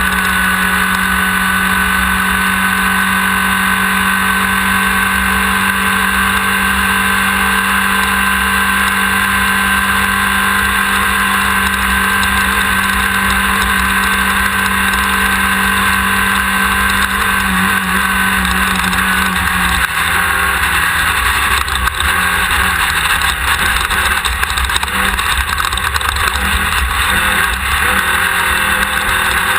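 Air-cooled 1600 cc VW flat-four of a Class 1600 desert race buggy running hard at steady high revs, with rattling and knocking from the car over rough ground. A little over halfway through the engine note drops and turns uneven.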